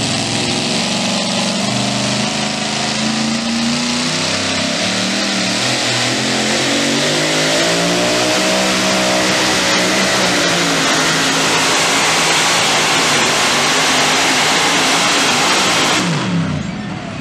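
Supercharged pulling engine running at full throttle as it drags a weight-transfer sled, its pitch rising and then falling midway through the run. About sixteen seconds in the throttle shuts off and the engine winds down.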